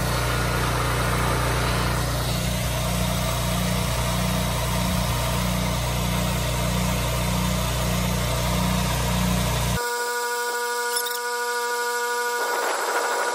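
A 4 gpm pressure washer running under load, its engine holding a steady pulsing note while water jets from the wand into a bucket; the unit is plumbed straight with no downstream injector. About ten seconds in, the low engine sound drops out abruptly and a thinner set of steady tones takes over.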